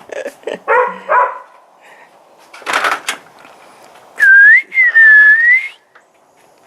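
A person whistling two loud, clear notes: a short rising one, then a longer one that dips and rises again. Before them come a few light clicks and a brief rustle.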